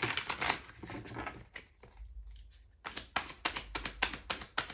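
Tarot cards being shuffled by hand: quick card slaps and riffles, settling into an even run of about four slaps a second in the second half, over a low rumble.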